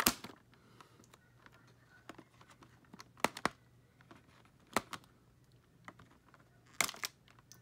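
Nippers snipping the plastic ties that hold a fashion doll to its plastic packaging tray: about six sharp clicks, one at the start, a pair around three seconds in, one near five seconds and a pair near seven.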